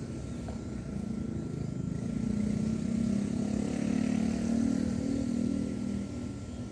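Engine of a passing motor vehicle: a low drone that grows louder to a peak about four to five seconds in, then fades.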